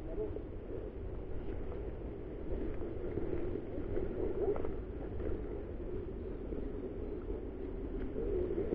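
Wind and handling rumble on a first-person camera microphone as the wearer walks through woodland, with faint rustling and footfalls.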